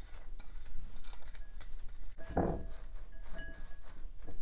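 Sliced vegetables, minced garlic and onion being scraped off a plate into a bowl and pressed down by a gloved hand: soft rustling and scattered light clicks, with a fuller thump about halfway through.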